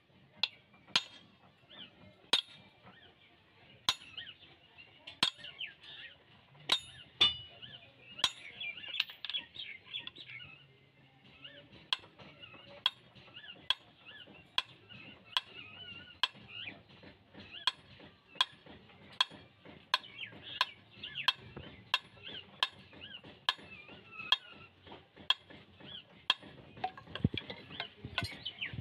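Hand hammer striking a steel punch against the metal socket of a pharsa axe head to set it on its wooden haft: sharp metallic taps, spaced out at first, then coming steadily about once a second. Birds chirp continuously in the background.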